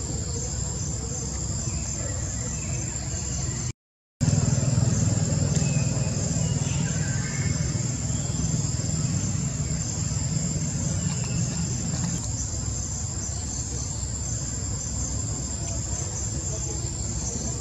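Steady, finely pulsing high-pitched insect chorus. About 4 s in the sound cuts out completely for half a second, and on its return a low rumble sits under the insects for several seconds before fading.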